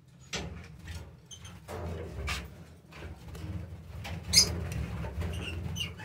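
Fischer's lovebirds giving short, shrill chirps and squeaks among scattered clicks and knocks, over a low steady rumble. The loudest, shrillest call comes about four and a half seconds in.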